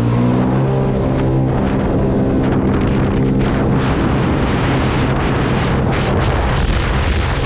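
Sea-Doo Spark's tuned Rotax 900 ACE engine running hard at near-full throttle around 50 mph, its note holding steady, with wind buffeting the microphone and water rushing past the hull.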